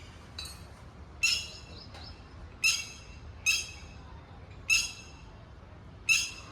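A parent bird, the mother of fallen chicks, calling repeatedly: five short, sharp chirps about a second to a second and a half apart.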